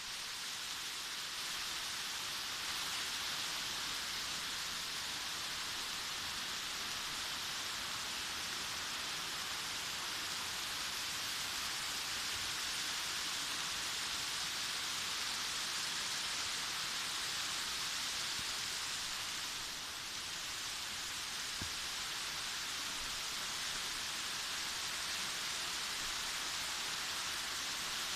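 Waterfall: water falling and splashing in a steady, even rush, with a brief slight dip about twenty seconds in.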